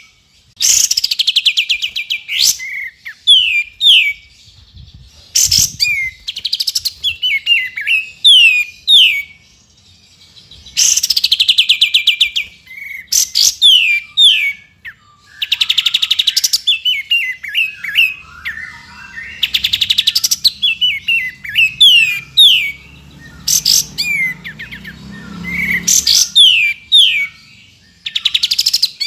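Streak-eared bulbul (kapas tembak) singing and calling. Loud bursts of rapid chattering trills come every few seconds, with short falling notes in between.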